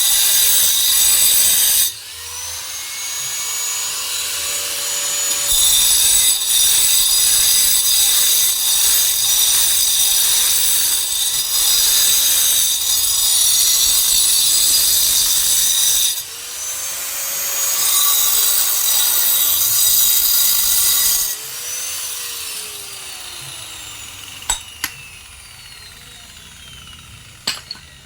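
Electric angle grinder cutting into stone in several long bursts: a harsh high grind while the disc bites, with the motor's pitch falling and rising between cuts. It winds down after about 22 seconds, followed by a few sharp taps near the end.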